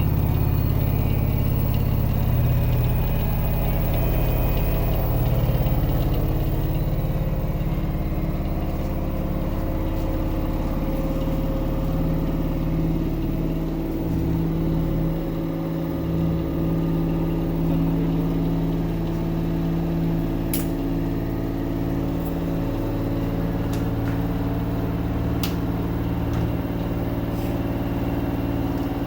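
LG 10 kg front-load washing machine running: a steady motor hum with a low rumble, and two sharp clicks in the second half. The owner blames the motor for the noise, which he likens to pebbles turning inside the machine.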